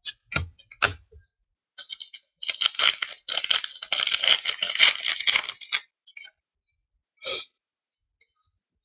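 A hockey card pack wrapper being crinkled and torn open by hand. A few light clicks come first, then about four seconds of dense crackling that stops suddenly, and a short rustle later.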